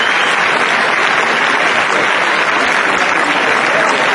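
Audience applauding, steady clapping throughout.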